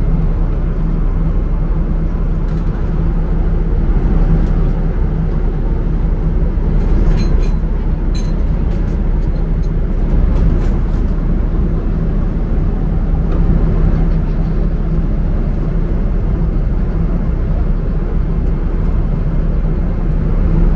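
Steady airliner cabin drone in cruise, a dense rush of engine and airflow noise over a low hum, with a few faint light clicks about seven to eight seconds in.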